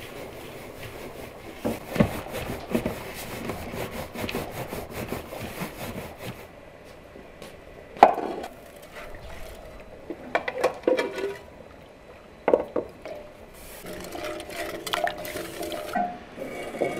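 Hands working a crumbly grainy mixture in a large aluminium basin, a dense gritty rustle, followed by scattered sharp clinks and clatter of metal and enamel pots and a ladle.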